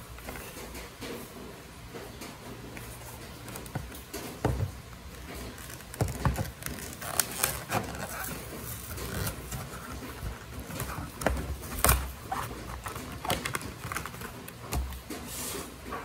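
Clear plastic blister pack being pried and peeled off its cardboard backing card to free a multitool: irregular plastic crackles, clicks and rustles, with the sharpest snap about three-quarters of the way through.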